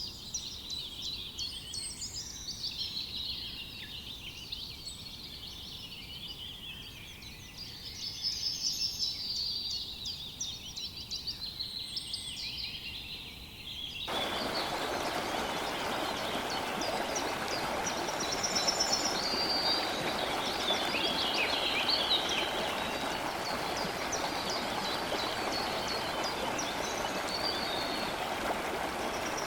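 Several forest songbirds singing, with overlapping chirps and trills. About halfway through, a steady rushing background noise comes in suddenly beneath the birdsong and stays.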